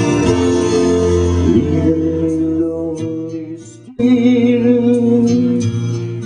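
Music from a stage performance, with sustained chords that die away about three seconds in. At about four seconds an abrupt cut brings in another loud passage of held chords.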